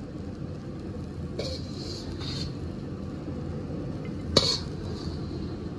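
A stainless steel ladle scrapes fried beans out of a wok onto a plate in a couple of short scrapes, then one sharp metal clank about four seconds in, over a steady low background hum.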